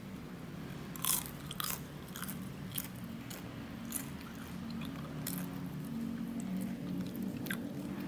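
Crunchy bites and chewing of a crisp-fried cibay, a spring-roll wrapper filled with chewy tapioca dough: a string of sharp crackles, loudest about a second in, the wrapper still crisp.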